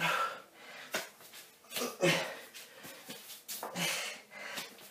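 A man breathing hard through a bodyweight floor exercise, with short, noisy breaths roughly once a second.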